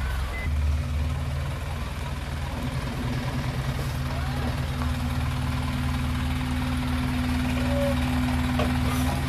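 Isuzu FRR 210 truck's diesel engine idling steadily, with its reversing beeper sounding one last time at the very start.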